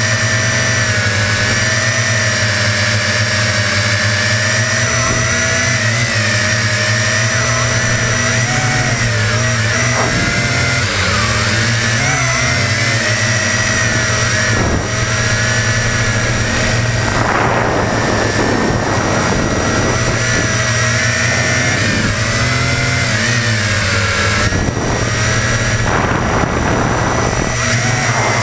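Quadcopter's electric motors and propellers running continuously, heard close up from a camera mounted on the airframe, with a steady whine whose pitch wavers up and down. There are stretches of rushing noise about two-thirds of the way through and again near the end.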